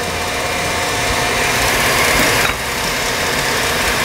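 Steady whirring of a small electric motor, which dips briefly about two and a half seconds in.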